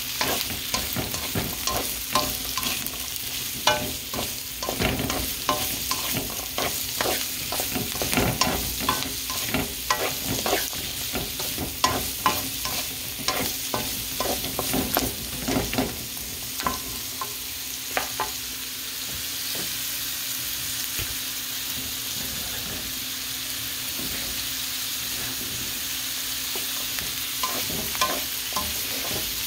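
Diced carrots and onions sizzling in a wok, with a plastic spatula scraping the pan and tossing them. A little past halfway the stirring stops and only a steady sizzle remains, until the scraping starts again near the end.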